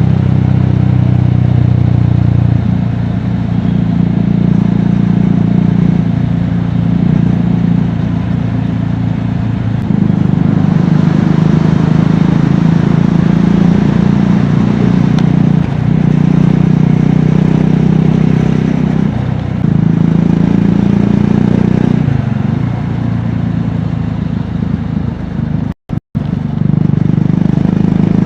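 Triumph Scrambler 400X's single-cylinder engine and exhaust running on the road, the note swelling and easing several times as the throttle is opened and closed. The sound drops out twice for an instant near the end.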